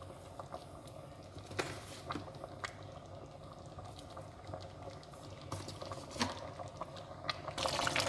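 A pot of egusi soup simmering and bubbling gently on the stove, with a few light clicks of a metal spoon against the pot as ground crayfish is spooned in. Near the end the bubbling grows louder.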